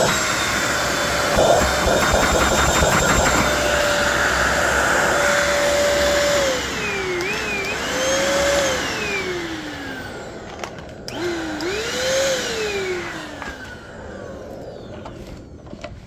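Bissell 3-in-1 Turbo stick vacuum running with a steady motor whine. About six seconds in, the whine drops and climbs back up a few times, then falls away and fades near the end.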